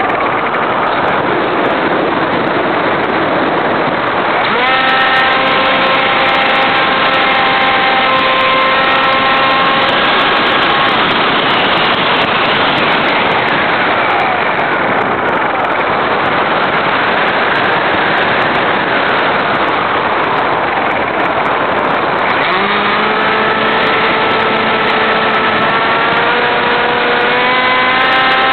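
Onboard sound of an RC airplane in flight: a steady rush of air noise with the whine of its electric motor and propeller. The whine comes in about four seconds in, fades about eleven seconds in, and returns near the end, rising in pitch as the throttle opens.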